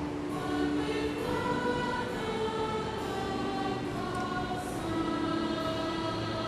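Choir singing a slow, hymn-like piece, several voices holding notes that change about once a second.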